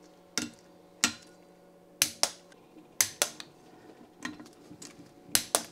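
Click-type torque wrench clicking off bolt after bolt, sharp clicks often in pairs, about one a second. Each click signals that a crankcase bolt has reached the 19 Nm first-stage torque.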